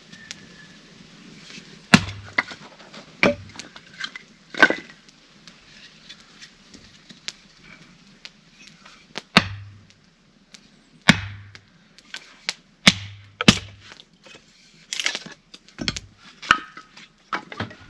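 Firewood being chopped: a dozen or more sharp, irregularly spaced cracks of a blade striking wood, several with a dull thud underneath.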